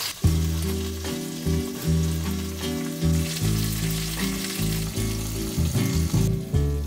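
Background music with a bass line and chords changing about every half second. Under it, food frying in a pot makes a steady hiss, which drops away near the end.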